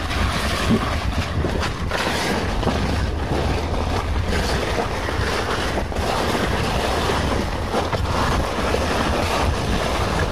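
Wind buffeting the microphone: a steady, low, rumbling rush.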